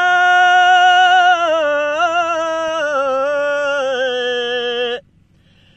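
A man singing unaccompanied, holding one long drawn-out note with a slight waver that steps down in pitch over about five seconds, then breaking off.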